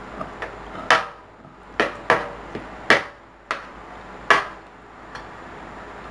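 Metal spoon clinking against a plate of rice: about six sharp clinks, each with a short ring, spread across the first four seconds.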